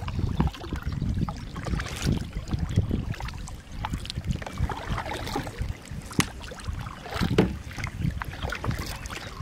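Double-bladed kayak paddle dipping and splashing in calm river water, stroke after stroke, with wind buffeting the microphone and a couple of sharp clicks about six and seven seconds in.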